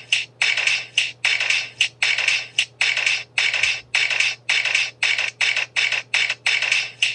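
Cartoon sound effect of a wooden wagon and a hanging cage creaking and rattling in a steady rhythm, about two to three harsh strokes a second, as the cage sways.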